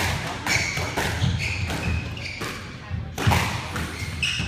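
Squash rally: the ball struck by racquets and smacking off the walls in a series of sharp hits, mixed with short high squeaks of court shoes on the wooden floor.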